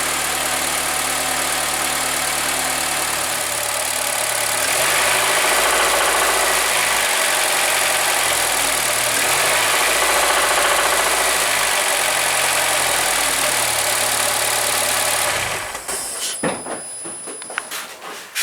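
Honda Accord's K24A 2.4-litre four-cylinder engine idling, then held at raised revs from about five seconds in, then switched off near the end. At idle it runs evenly; off idle, around 2000 rpm, it knocks, the sign of a failing connecting-rod bearing, suspected on the second cylinder. A few short clicks and knocks follow the shutdown.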